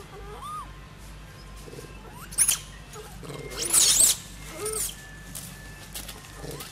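High-pitched squeals of an infant long-tailed macaque, rising and falling in pitch. A short squeal comes about two and a half seconds in, then a louder, longer run of squeals around four seconds in, with a few softer, lower calls in between.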